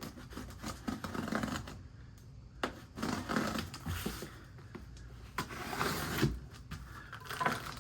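Cardboard shipping box and its packing being opened and handled by hand: irregular rustling and scraping with scattered clicks and knocks.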